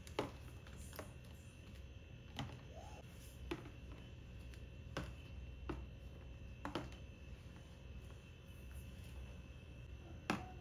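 Plastic squeeze bottles being set down one at a time in a slim slide-out storage rack: light, separate knocks and clicks, about eight of them, the loudest near the end, over a faint steady hum.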